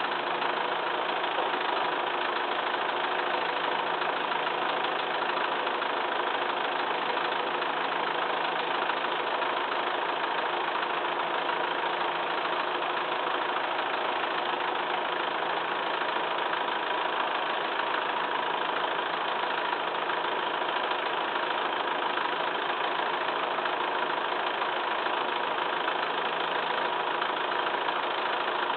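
Massey Ferguson 2635 tractor's diesel engine idling steadily at an even pitch, with no revving.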